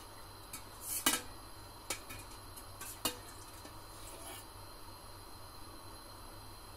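A few faint light clicks and taps over quiet room noise, then oil poured onto a dry cast-iron griddle near the end.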